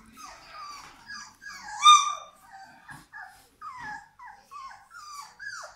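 Beagle puppies whining and yipping as they play: a quick string of short, high squeaky calls that mostly slide down in pitch, with one louder yelp about two seconds in.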